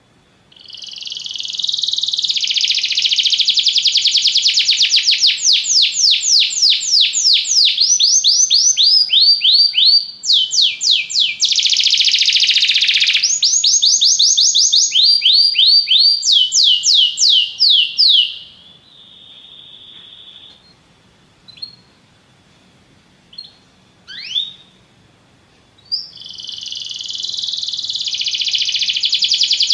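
Domestic canary singing a long, high-pitched song of rapid rolling trills. About two-thirds of the way through it breaks into a short held note and a few single chirps, then starts trilling again near the end.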